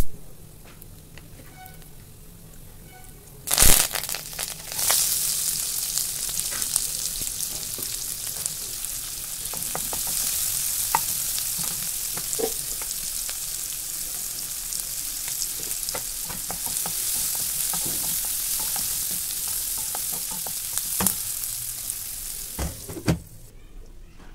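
A few seconds in, chopped onions and curry leaves are tipped into hot oil over a tempering of dals and seeds in a pan, landing with one loud hit and then sizzling steadily with crackling spatter and stirring. The frying stops suddenly near the end.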